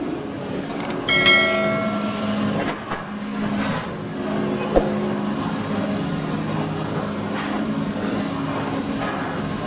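Sawmill machinery running with a steady hum, a short metallic clank that rings briefly about a second in, and a sharp knock near five seconds.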